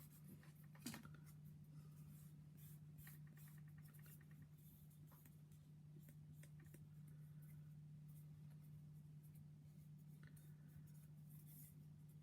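Faint, repeated scratchy strokes of a sanding stick rubbed over a small plastic model part, with a steady low hum underneath.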